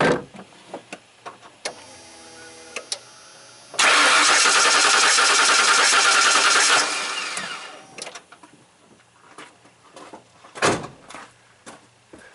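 Ford 5.8L Windsor V8 cranked over by its starter for about three seconds in clear-flood mode, throttle held open so it doesn't fire, with a compression gauge on one cylinder; the cranking stops and winds down. A short steady tone comes before it and a single thump follows.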